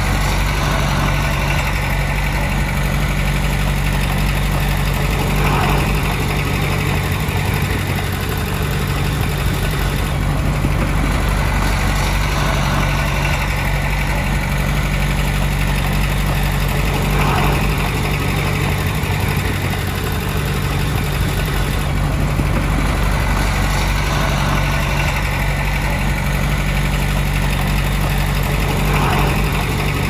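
Diesel engine of heavy earthmoving equipment running steadily, with a low, even hum. A higher sound swells and fades about every six seconds.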